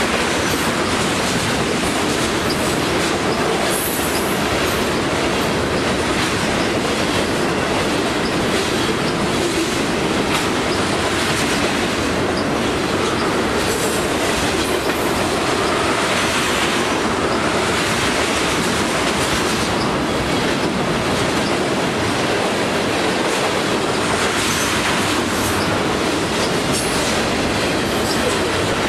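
Freight train of loaded tank cars rolling past close by: a steady noise of steel wheels on rail, with repeated clicking as the wheels cross rail joints.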